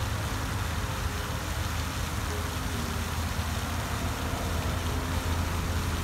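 Floating pond fountain spraying, a steady hiss and patter of falling water, over a steady low rumble.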